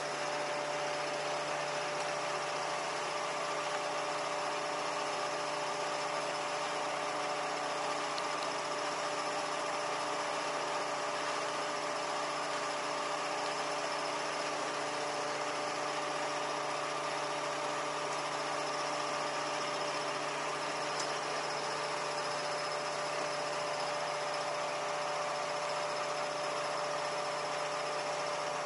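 Truck-mounted ladder lift running steadily: an even mechanical hum with a few held whining tones that keeps the same pitch and level throughout.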